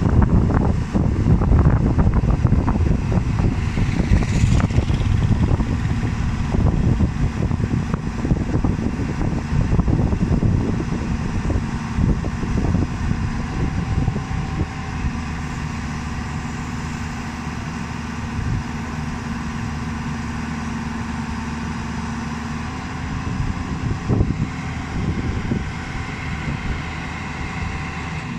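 JCB 205 tracked excavator's diesel engine working under load as the machine crawls onto a low-bed trailer, with clattering and knocking from its steel tracks. About halfway through it settles to a steadier drone with a held tone, and the knocks pick up again near the end.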